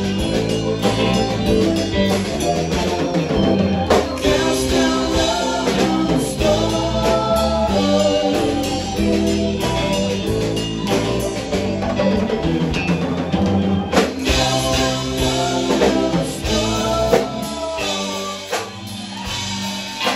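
A live rock band playing, with electric guitars and a drum kit, loud and continuous.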